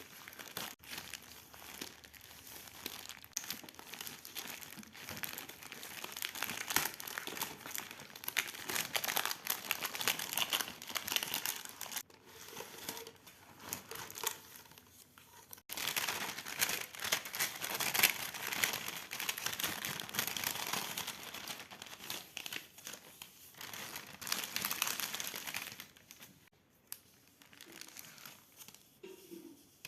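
Parcel packaging being crinkled and torn open by hand: dense crackling and rustling in long stretches with brief pauses, growing quieter near the end.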